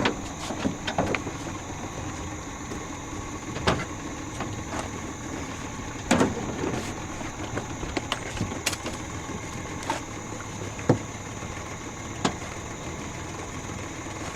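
Scattered clicks and knocks of fishing tackle being handled, as lead sinkers are picked out of a tackle box, over a steady background hiss with a high, even tone.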